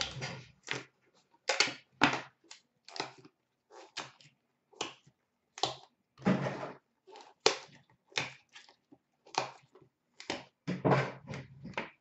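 Handling noises: a string of irregular clicks, taps and short rustles, roughly one or two a second, as trading-card boxes and a plastic card case are picked up and set down on a glass counter.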